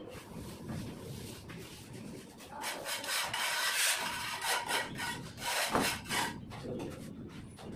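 Plastering tools scraping and rubbing over wet cement-sand plaster on a brick wall, in a run of rasping strokes. The strokes are loudest from about halfway through, with another burst near the end.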